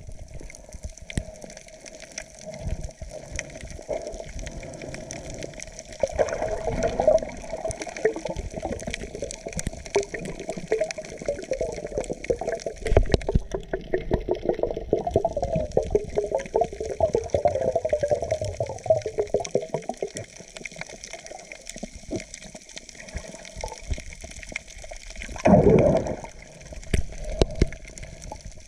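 Underwater sound from a camera held below the surface among snorkellers: muffled water movement with many scattered clicks and crackles, and a louder rush of water near the end.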